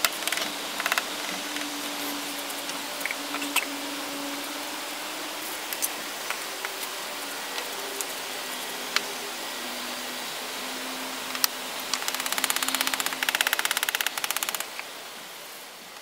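Firebricks being set for a kiln: scattered single knocks of brick and mallet over a steady hiss, with a fast rattle about twelve seconds in, fading out near the end.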